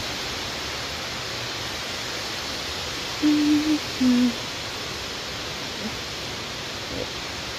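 Steady background hiss of a large lobby, with a short two-note hum from a person's voice about three seconds in, the second note lower than the first.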